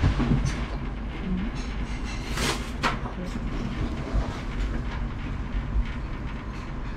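Restaurant room noise: a steady low rumble, with two short knocks about half a second apart some two and a half seconds in.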